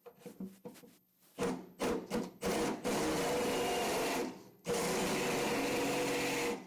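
Electric drill cutting into sheet metal: a few short trigger bursts, then two longer steady runs of a couple of seconds each with a short pause between them.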